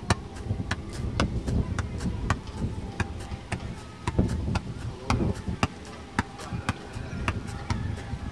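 A quick, fairly regular series of sharp knocks or taps, about two to three a second, over a low rumble.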